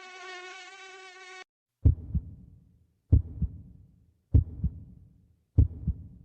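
A wavering, insect-like buzzing sound effect that cuts off abruptly after about a second and a half. It is followed by a heartbeat sound effect: four slow double thumps (lub-dub), about one and a quarter seconds apart.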